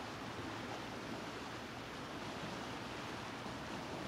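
Steady, even outdoor background rush with an unsteady low rumble underneath and no distinct events.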